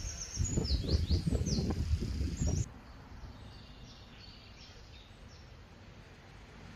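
Small birds chirping and singing in trees, with a loud, irregular low rumble on the microphone that cuts off abruptly about two and a half seconds in, leaving fainter birdsong.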